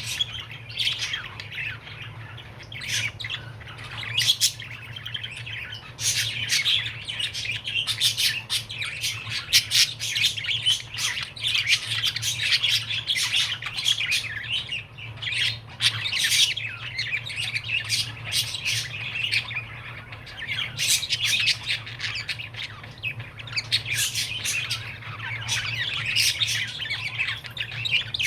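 Male budgerigar chirping and warbling without pause, a fast stream of chattering notes, squawks and clicks, over a steady low hum.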